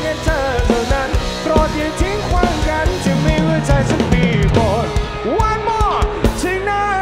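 Live rock band playing an instrumental passage: an electric guitar lead with bending, sliding notes over a drum kit.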